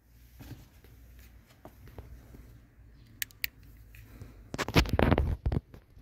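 Plastic fuse box cover of a Volkswagen Golf Mk3 being handled under the dashboard: two small clicks, then a burst of plastic clattering and rustling about three-quarters of the way through.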